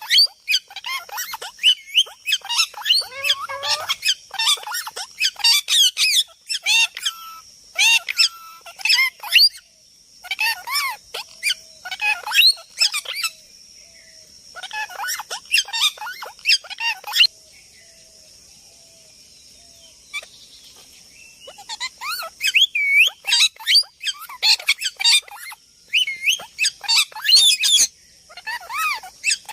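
Parrots chattering in rapid runs of warbling chirps and squeaks, in bursts with short pauses and a quieter stretch of a few seconds around the middle.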